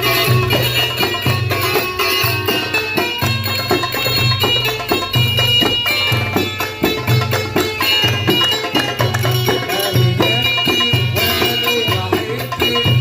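Egyptian simsimiyya folk music played live: a plucked simsimiyya lyre carries the melody over a steady hand-drum rhythm.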